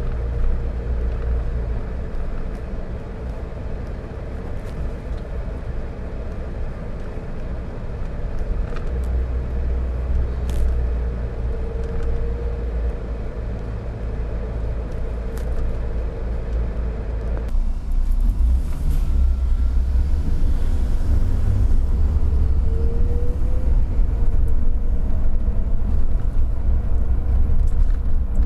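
Car driving, heard from inside: steady low rumble of engine and road noise, with a steady hum that stops about two-thirds of the way through. After that the rumble grows louder.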